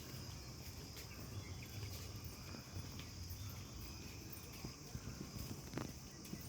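Insects trilling steadily in a high, even drone over a low rumble, with a few soft knocks, the clearest near the end.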